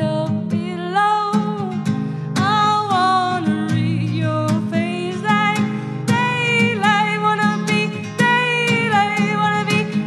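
A singer's voice over a strummed guitar, the melody in held notes that glide between pitches, with the guitar strokes keeping a steady pulse.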